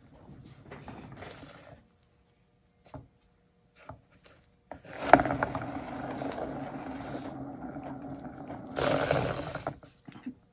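Hand-spun turntable carrying a wet paint-poured canvas, rumbling and scraping on its bearing as it spins. It starts with a sharp push about halfway through, runs for about five seconds, grows louder just before it stops near the end.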